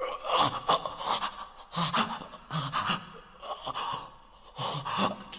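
A wounded man gasping and panting in pain: about a dozen short, ragged, uneven breaths, a few with a strained voiced edge.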